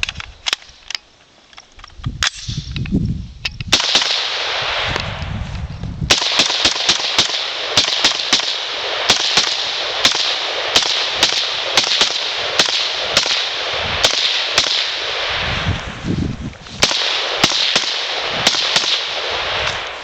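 AR-15 semi-automatic rifle firing fast strings of shots, a few a second, with short lulls between strings.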